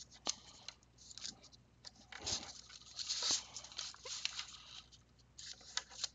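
A sheet of origami paper rustling and scraping as fingers fold its corners and run along the creases, in short intermittent brushes with a few soft clicks.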